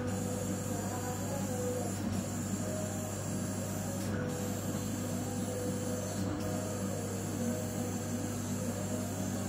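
Home-built CO2 laser cutter at work on plywood: its stepper motors whine in short rising and falling tones as the head moves from cut to cut, over a steady low hum.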